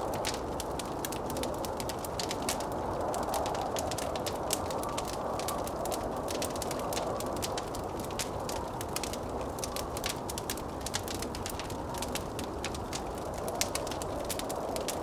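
Wood fire crackling with many small irregular pops, over a steady rushing blizzard wind.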